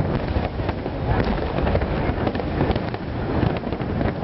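Fireworks going off in a dense, continuous barrage of rapid crackles and bangs, with a low rumble underneath.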